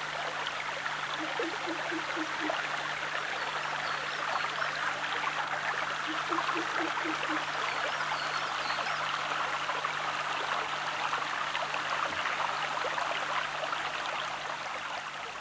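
Small forest stream running steadily over stones, a continuous rushing of water.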